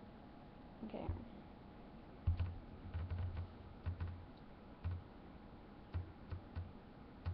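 Irregular soft taps and knocks close to the microphone from hands and a thin art brush working at a tabletop, about a dozen over the last five seconds.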